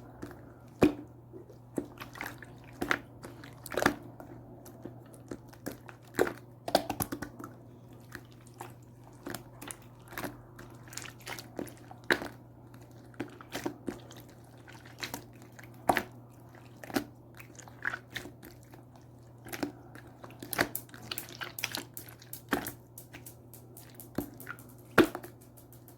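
Colourless clear slime being pressed and squished by hand, giving irregular sticky pops and clicks, some in quick clusters.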